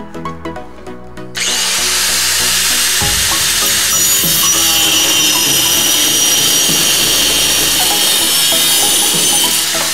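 Corded DeWalt high-speed rotary tool starting up about a second and a half in and running steadily with a high whine as it cuts into cast aluminum, freeing a freshly cast motor spool from the rest of the casting. The sound tails off near the end.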